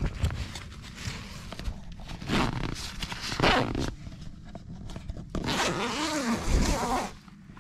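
A tent door zipper being pulled open, rasping in three strokes, the last the longest.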